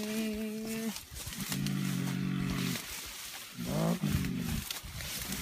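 Two low, drawn-out humming grunts, deep rumbling vocalizations of the kind made around mountain gorillas: the first held level for more than a second, the second rising and then falling in pitch.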